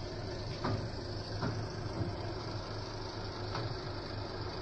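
BD50 bulldozer's diesel engine running steadily, with a few short knocks over it.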